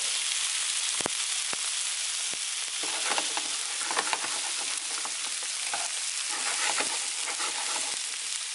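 Lamb chops searing in hot oil in a frying pan: a steady sizzle with fine crackling, and one sharp click about a second in.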